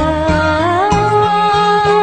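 Hmong song: one long held melody note that steps up in pitch partway through, over a pulsing bass line.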